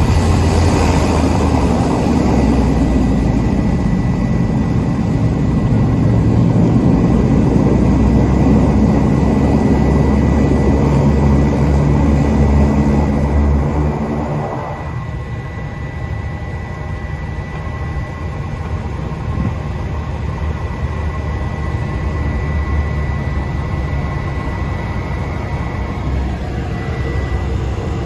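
Cabin noise of a Cessna 208 Caravan's PT6A turboprop engine and propeller running at steady power, with a thin high steady tone. About halfway through, the low drone drops sharply as power is pulled back, leaving a lighter engine whine.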